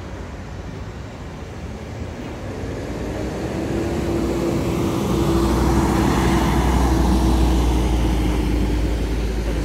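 Road traffic with a motor vehicle's engine growing louder: a low rumble and a steady hum that build up and are loudest about seven seconds in, then ease off slightly.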